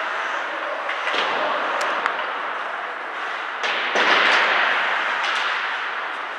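Ice hockey game heard from the stands: steady arena crowd noise with sharp knocks of puck, sticks and boards, and the crowd getting louder about four seconds in.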